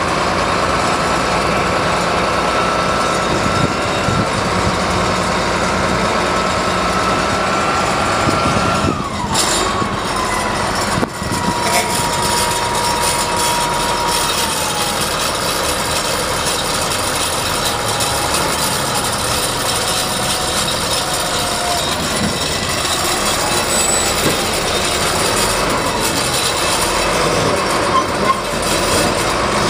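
Caterpillar D7R crawler bulldozer's diesel engine running steadily, with a high whine that drops in pitch about nine seconds in and again around fifteen seconds.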